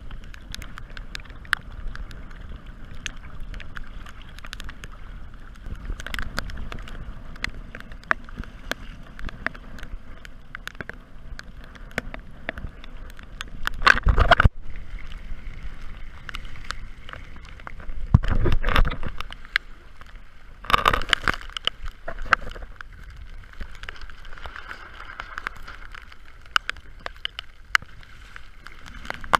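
Water rushing and splashing along the hull of a Hobie Adventure Island sailing kayak under way in choppy water, with scattered sharp ticks of spray and a steady rumble of wind on the microphone. Three louder splashing surges come in the middle.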